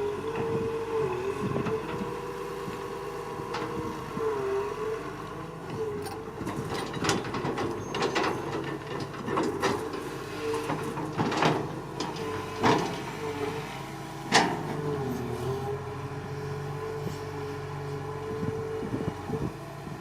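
Excavator engine and hydraulics running steadily, the pitch sagging now and then under load and recovering, with a scatter of sharp knocks from the machine working, the loudest about two-thirds of the way through.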